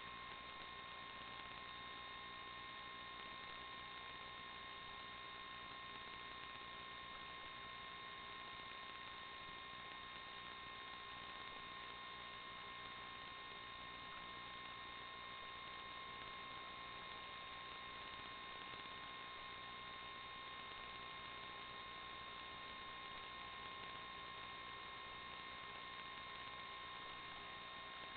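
Steady electrical hum and hiss with a few constant high whine tones, unchanging throughout.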